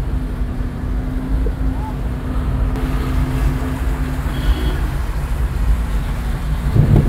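Steady low rumble of a car's engine and tyres heard from inside the cabin while driving through shallow floodwater, with a steady hum for the first few seconds.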